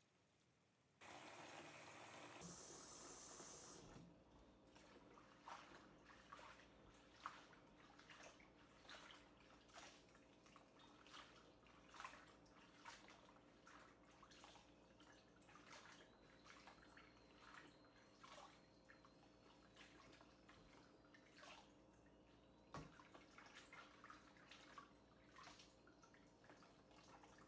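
Faint water sounds of spinach leaves being washed by hand in a basin of water in a stainless steel sink: a short hiss of water about a second in, then scattered small splashes and drips as the leaves are swished and lifted into a plastic colander.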